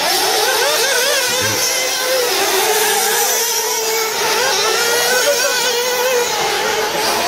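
Several 1/8-scale four-wheel-drive RC buggies racing, their small nitro engines making a high-pitched buzz that keeps rising and falling as they rev and back off.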